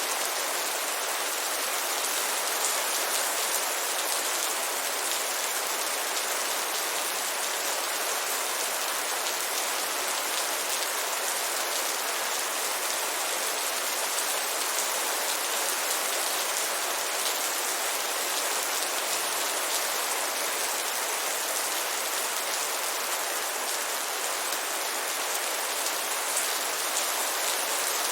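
Heavy rain falling steadily, a dense even hiss of drops on surfaces with no let-up.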